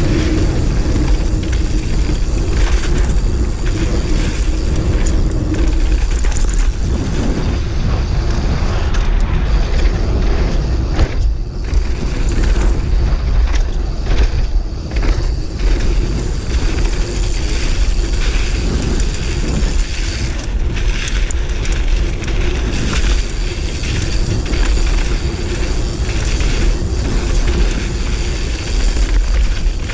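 Wind rushing over an action camera's microphone on a fast mountain-bike descent, a steady deep rumble, mixed with the Giant Reign's tyres rolling over dirt singletrack and the odd knock from the bike.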